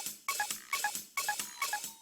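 Background music with a steady drum beat and short plucked-sounding notes, about three to four hits a second, starting suddenly just before.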